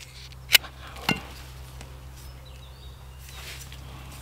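Knife cutting into a green hazel stick as a point is whittled onto it: two sharp cuts about half a second apart, then a softer scrape of the blade past the middle.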